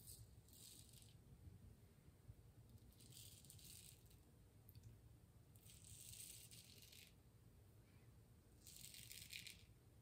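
A replaceable-blade straight razor scraping through lathered stubble on the neck: four short, faint, scratchy strokes, spaced two to three seconds apart.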